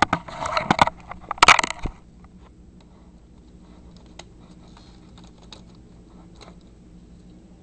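Handling noise: a flurry of plastic clicks and rustling in the first two seconds, loudest about one and a half seconds in, then only a few faint clicks.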